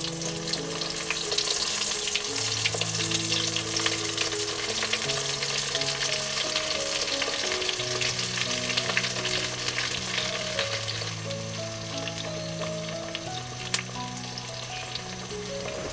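Battered cauliflower florets deep-frying in hot coconut oil in an iron wok: a steady sizzle full of fine crackles, with one sharp click near the end.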